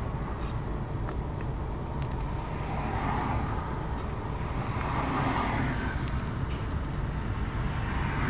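Steady low background rumble, with a few faint clicks and two brief rustles about three and five seconds in.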